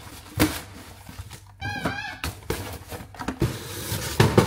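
Cardboard shipping box being opened and a smaller carton lifted out of it: rustling cardboard and several knocks of the boxes on the counter, the loudest near the end. A brief whining sound comes a little before the middle.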